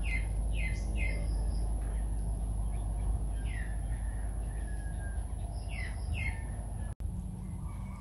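Birds calling with short downward-sliding chirps, a quick run of three at first and then a few scattered ones, over a steady low rumble. The sound drops out for an instant about seven seconds in.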